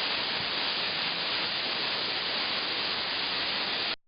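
A steady, even hiss that cuts off suddenly near the end.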